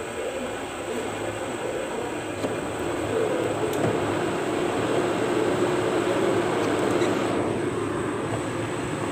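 Kitchen range hood exhaust fan running over a lit gas burner, a steady rushing hum that gets louder about three seconds in.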